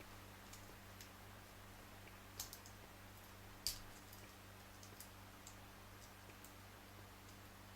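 Faint, scattered metal clicks of a lock pick working inside a padlock, with two louder clicks about a second apart near the middle, over a low steady hum.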